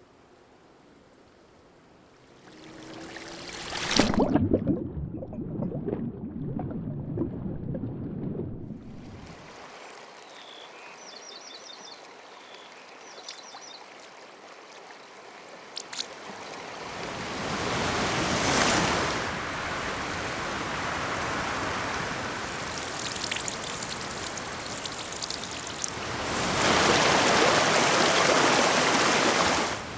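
Sound-effect water: rushing, surging water that swells and fades in waves, quiet at first and loudest near the end, with a few faint rows of quick high ticks in the middle.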